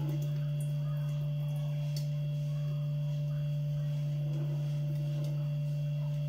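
Steady low electrical hum, one unchanging tone with a few fainter overtones; no mixer grinding is heard.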